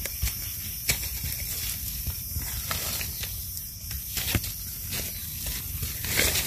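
Dry leaf litter rustling and crackling as hands work a knife around the base of a bolete mushroom to cut it free, with a few sharper crackles over a steady high hiss.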